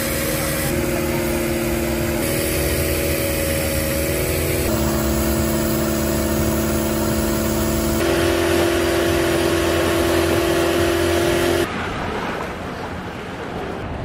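Longtail boat's engine running at speed, a steady drone over rushing water and wind. Its pitch steps up or down a few times, and it stops about twelve seconds in, leaving a quieter open-air background.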